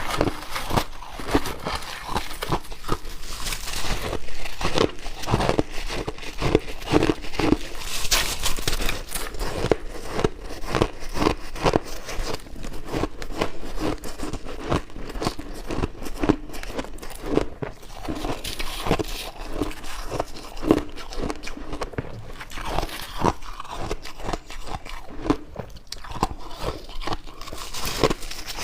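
A person biting into and chewing chunks of compacted shaved ice, with dense, irregular crunching and crackling close to the microphone throughout.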